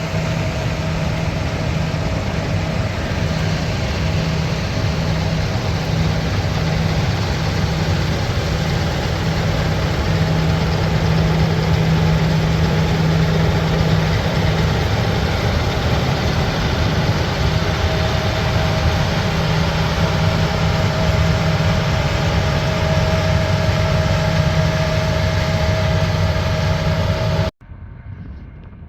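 Heavy diesel engine running steadily under load, a constant low drone with a steady higher hum over it; the sound cuts off suddenly near the end.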